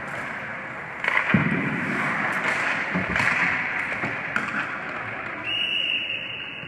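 Ice hockey play: skates scraping the ice and sticks and puck clacking several times, over a steady hiss. Near the end a referee's whistle blows one steady note for about a second as play stops at the net.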